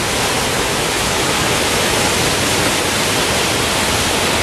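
Loud, steady rushing of whitewater from the Eisbach's standing river wave, the water churning fast through the channel.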